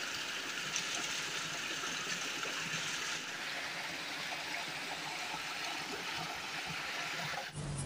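Steady rushing of flowing water with no change in pitch or level, cutting off abruptly near the end.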